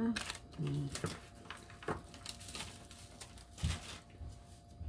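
Soft scattered knocks and light rustles of a dry sheet of gim (roasted seaweed) being handled and laid on a bamboo rolling mat, with a short spoken syllable just under a second in.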